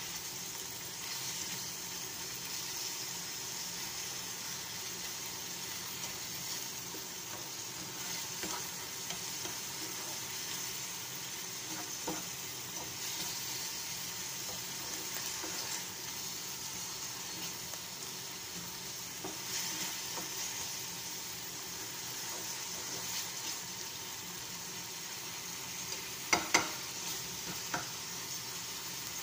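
Moringa (malunggay) leaves and canned tuna sizzling gently in a frying pan as a spatula stirs them, a steady hiss of frying. A few sharp knocks of the spatula against the pan near the end.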